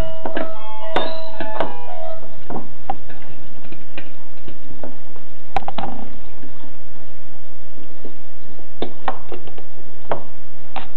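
Scattered light clicks and taps, about a dozen at irregular spacing, of a jumper wire being handled and fitted onto a dual voice coil subwoofer's terminal posts.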